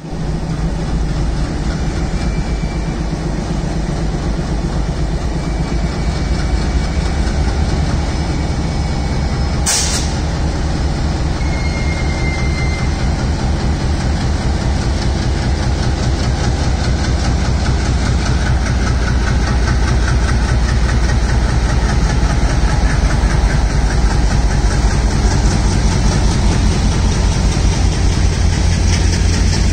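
ALCO diesel locomotive engine chugging steadily as the locomotive moves slowly past hauling its train, gradually growing louder toward the end. A single sharp crack about ten seconds in.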